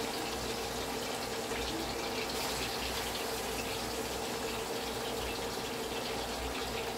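Seasoned chicken back pieces frying in hot oil in a pan: a steady sizzling hiss with fine crackles, the chicken browning.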